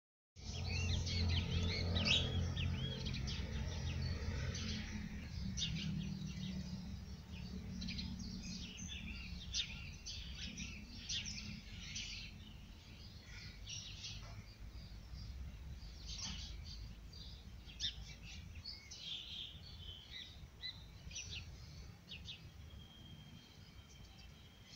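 Small birds chirping with many short, quick calls throughout, and a thin steady whistle lasting about two seconds near the end. A low rumble sits underneath, loudest in the first few seconds.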